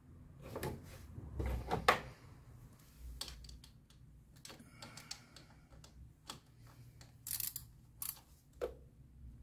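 Hand tools clicking and knocking on an LPG injector rail as it is worked loose: a series of separate clicks and knocks, with handling rustle in the first two seconds and the loudest knock just before two seconds in.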